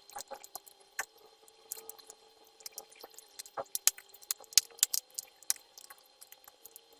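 Soldering iron melting the plastic rivets that hold a laptop's metal keyboard plate, with irregular small clicks and crackling pops that come thickest about halfway through.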